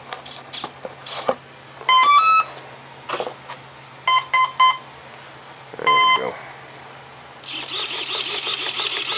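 Brushless motor's electronic speed controller (ESC) beeping as the LiPo battery is connected: a quick rising three-note startup tune, then three short beeps, then one longer beep as it arms. A raspy buzz follows near the end.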